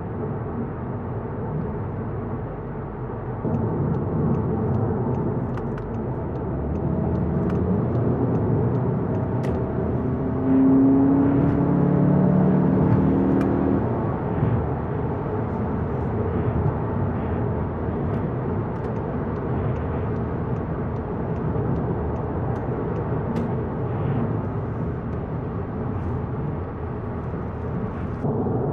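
Volkswagen Golf GTI Mk7.5 on the move: steady road and tyre rumble with the 2.0-litre turbocharged four-cylinder engine running underneath. The engine note comes up louder for a few seconds about ten seconds in.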